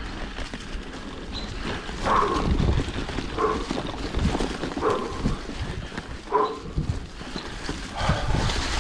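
Mountain bike rolling over leaf-covered dirt singletrack, with wind rumbling on the microphone. A short pitched squeak or cry recurs about every one and a half seconds.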